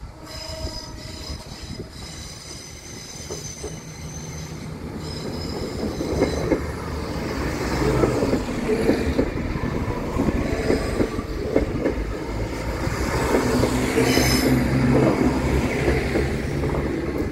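Southern Class 171 Turbostar diesel multiple unit approaching and passing close by, the rumble of its engines and wheels on the rails growing louder from about six seconds in and staying loud. A high-pitched squeal sounds over the first six seconds as it approaches.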